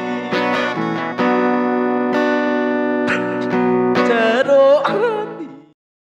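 Acoustic guitar strummed under a song, with a held, wavering sung note near the end. The audio then cuts off abruptly to silence.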